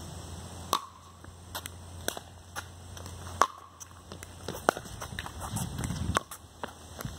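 Pickleball rally: the hard pop of paddles striking the plastic ball, with the ball bouncing on the concrete court and shoes scuffing between shots. Several sharp pops, the loudest about three and a half seconds in.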